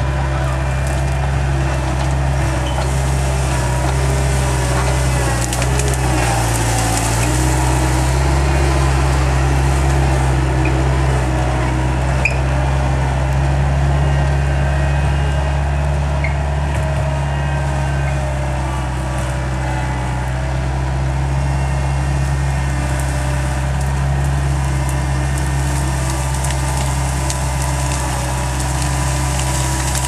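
Skid steer engine running steadily under load, its note dipping briefly about six seconds in, with brush and branches crackling and snapping as the grapple root rake pushes and grabs through the debris.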